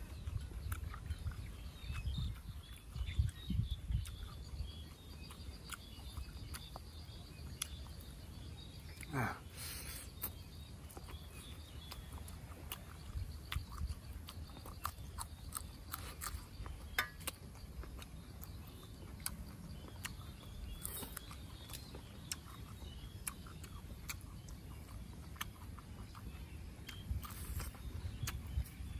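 Close-up chewing and mouth smacking of a person eating pig stomach, heard as many small scattered clicks, with some low rumbling in the first few seconds. About nine seconds in, a single whistle-like sound falls steeply in pitch.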